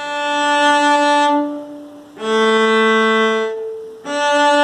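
Cello bowed in single sustained notes: the open A string for about a second and a half, then a lower note, then the open A again near the end, a melodic interval played for ear training.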